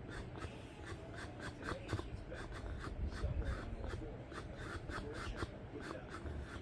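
Pressurised air from a CPAP nasal mask escaping through an open mouth, making the lips sputter in an irregular run of pops over a low rumble, like a motor that won't start.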